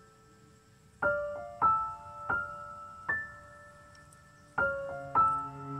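Background music: piano notes struck one at a time, starting about a second in, each ringing and fading, with a low held note coming in near the end.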